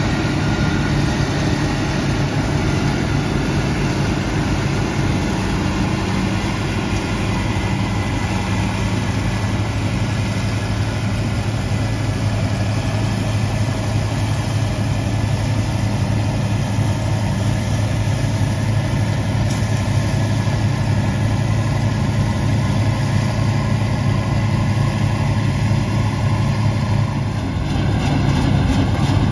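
Bizon Z056 Super combine harvester with its SW-400 six-cylinder diesel engine running steadily under load while it cuts and threshes wheat. The sound is a steady, even engine drone that shifts slightly near the end.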